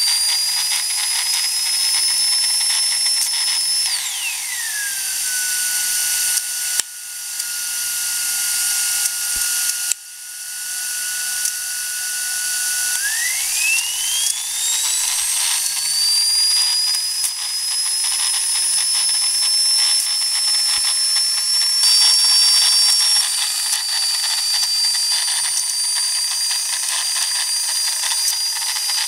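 Karsten Gintschel "Tornado" model steam turbine whining at high speed over a steady steam hiss. About four seconds in, its pitch drops steeply as it is throttled back. It holds low for several seconds, then climbs back up to full speed, and a second, slightly lower whine joins near the end.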